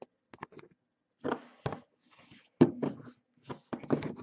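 Irregular handling noises: rustles, clicks and knocks as a plastic figurine and the camera are moved about by hand. The loudest is a sharp knock about two and a half seconds in.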